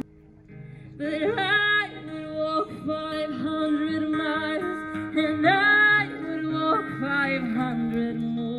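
A woman sings live to her own acoustic guitar accompaniment, with bending, held sung notes over the guitar. It is much quieter for about the first second.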